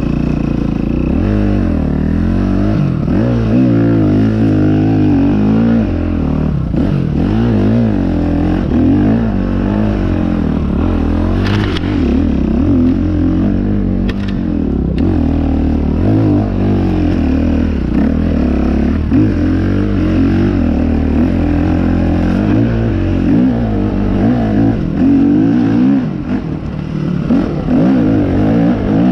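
Dirt bike engine ridden off-road under constantly changing throttle, its pitch rising and falling over and over. A couple of sharp knocks about halfway through.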